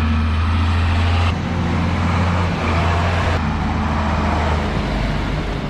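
Mercedes-Benz Unimog U1600's six-cylinder diesel engine running steadily as the truck drives, a strong low engine note under a broad rushing noise. The sound changes abruptly twice, where shots are cut together.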